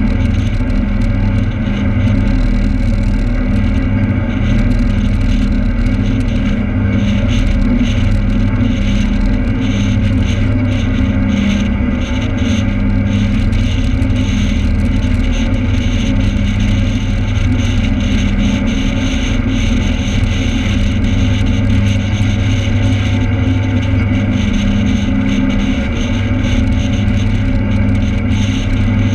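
A cruise boat's engines running with a steady low hum, under a constant rush of wake water and wind.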